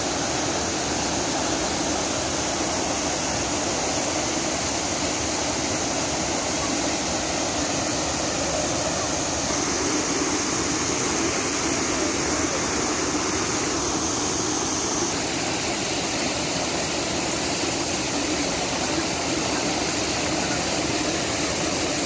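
Artificial waterfall: thin sheets of water pouring down a stepped stone wall and splashing into a shallow pool, a steady rush of falling water.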